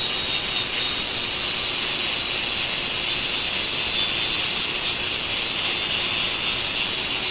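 Electric angle grinder running steadily with an abrasive disc pressed on a steel plate, grinding the surface clean before welding: a steady whine over a dense hiss.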